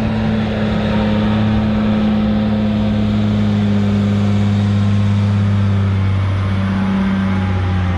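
Tractor engine running at a steady pitch, a loud low hum.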